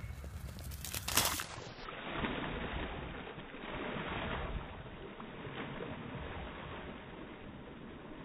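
A dog splashing through shallow lake water and swimming, its legs churning the surface. The loudest splash comes about a second in, and the splashing swells again around four seconds.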